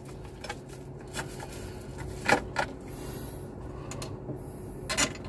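A few sharp metallic clicks and clacks as hands work the latch of the A320 crew oxygen cylinder's mounting clamp strap, the loudest a little past two seconds in and near the end, over a faint steady hum.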